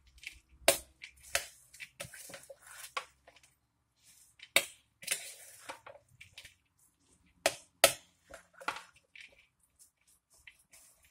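A large spoon stirring and tossing shredded cabbage and carrot in a glass bowl to mix in the vinegar: irregular sharp clinks of the spoon against the glass among wet rustling of the vegetables.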